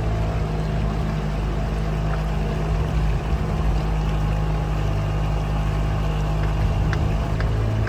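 A boat's engine running at a steady low hum while the boat cruises, with water and air rushing past.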